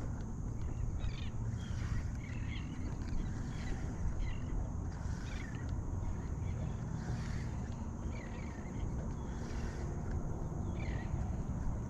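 Birds calling outdoors in short chirps, about one a second, over a steady low rumble of wind or water noise.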